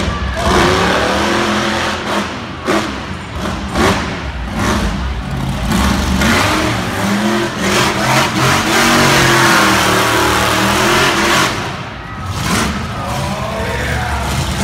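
Monster truck engine revving hard, its pitch rising and falling again and again, loudest through a long stretch in the middle.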